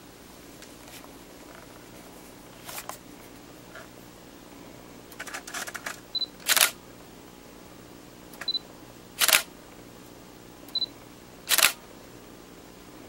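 Sony Alpha 330 DSLR with a DT 50mm f/1.8 SAM lens taking three pictures, one after another. Each shot is a short high beep as focus locks, then the shutter firing a moment later. A few quieter clicks come before the first shot.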